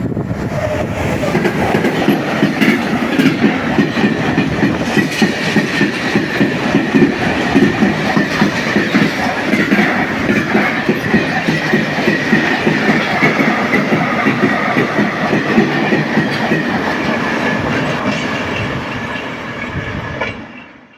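Train passing close by, its wheels clacking rhythmically over the track under a steady high whine. It cuts off suddenly near the end.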